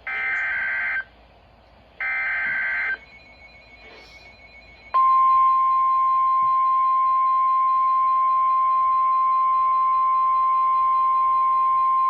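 NOAA Weather Radio Emergency Alert System opening: two one-second bursts of warbling digital SAME header data, a second apart. About two seconds later the steady single-pitch warning alarm tone begins, loud and unbroken, announcing a severe thunderstorm warning.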